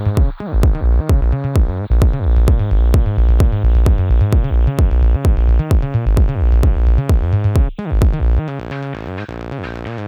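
Electronic dance music: a drum-machine beat with steady sharp ticks over heavy pulsing bass and synth. About eight seconds in the bass drops out, leaving a quieter synth pattern with the ticks.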